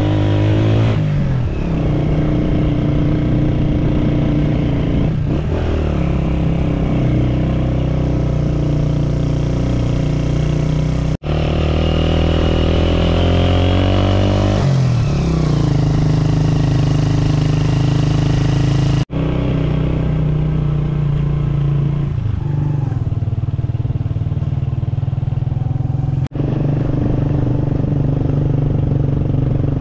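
Motorcycle engine running while being ridden, its note rising and falling with the throttle. The sound breaks off abruptly for an instant three times.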